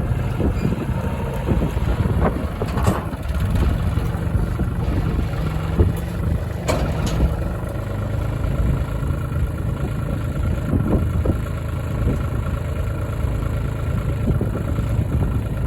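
Tractor engine running steadily, with a few short knocks and clanks in the first half.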